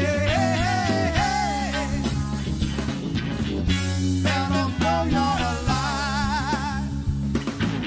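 Live rock band playing: a male lead singer sings over electric bass, electric guitar and drums. He sings a phrase in the first two seconds, then sings again from about four seconds in, ending on a wavering held note.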